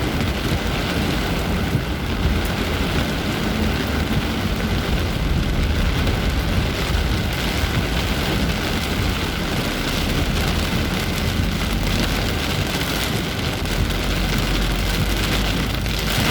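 Heavy tropical rain pouring down in a steady, dense hiss, with a constant low rumble underneath.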